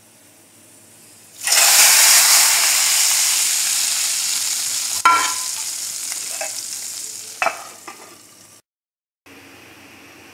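Hot tarka oil poured into a pot of masoor dal, bursting into a loud sizzle about a second and a half in that slowly dies away over several seconds, with a couple of sharp metal knocks of the pan or spoon along the way.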